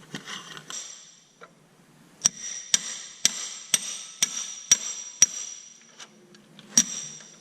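Hammer blows on metal: seven evenly spaced strikes about two a second, then one more a moment later, each with a bright ring. The hammer is driving a shaft out on a tractor.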